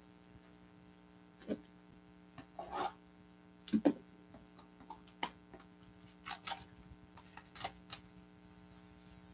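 Trading cards being handled on a table: scattered light clicks, taps and rubs of cardboard, about a dozen irregular short sounds, over a steady electrical hum.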